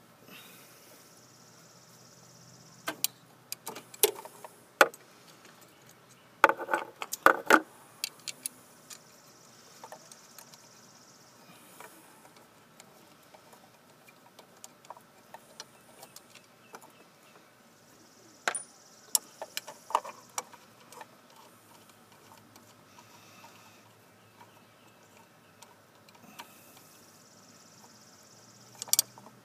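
Sharp metallic clicks and clinks of hand tools and bolts on a metal sensor bracket as it is unbolted, coming in short clusters several seconds apart with a low background between.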